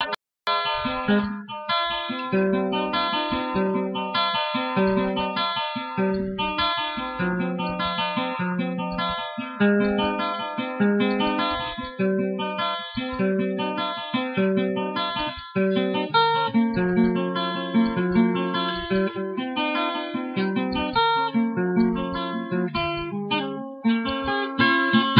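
Acoustic guitar played solo, an instrumental piece of picked notes in a repeating pattern over a low note that sounds about once a second. The sound cuts out briefly right at the start.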